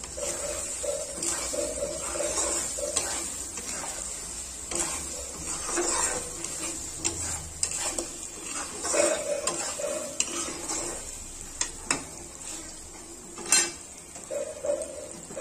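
Steel spatula scraping and clinking against a wok while stirring soya chunks frying in oil, with a steady sizzle underneath. A couple of sharper clinks come near the end.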